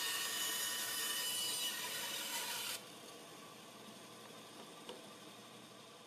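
Homemade bandsaw with a freshly sharpened blade cutting through a softwood block with a steady sawing hiss. The cut ends abruptly about three seconds in, leaving the saw running free and much quieter, with one light knock near five seconds.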